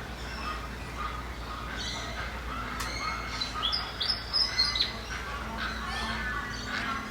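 Several birds chirping and calling at once in a busy chorus of short, overlapping notes, over a steady low background rumble.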